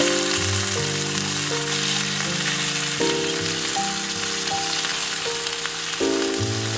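Sliced meat sizzling steadily in a small pan as it is grilled, with background music of held notes that change every second or so.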